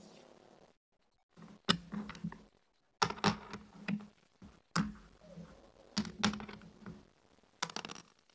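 Backgammon checkers clacking and sliding into place on a wooden backgammon board in several bursts of sharp knocks, with dice rolled onto the board during the moves.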